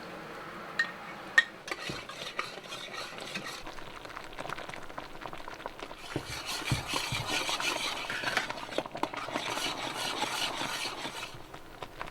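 A utensil stirring and scraping in a pot of lemonade-pudding mixture, with two sharp clinks near the start. The stirring grows faster and busier about halfway through.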